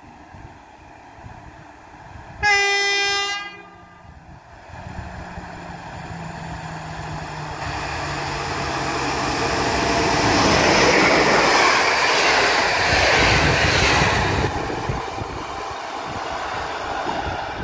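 Passenger train hauled by an electric locomotive passing through a station without stopping. A single train-horn blast lasting about a second comes about two and a half seconds in. Then the rumble of the train grows as it approaches, is loudest a little past the middle as it goes by, and fades as it draws away.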